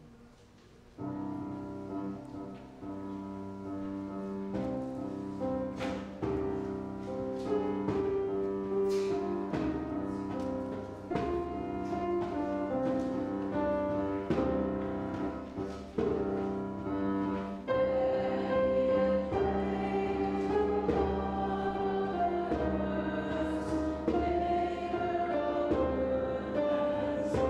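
Hymn music starting about a second in: long held keyboard chords with a hand frame drum struck every second or two. It grows fuller and louder at about 18 seconds.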